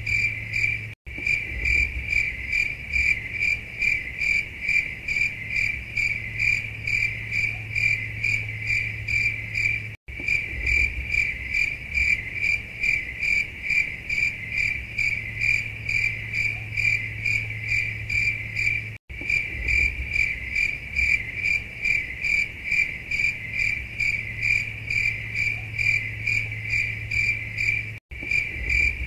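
Crickets chirping in a steady, even rhythm, several chirps a second, over a low hum: the classic 'awkward silence' cricket effect. The sound cuts out for an instant about every nine seconds, where the recording loops.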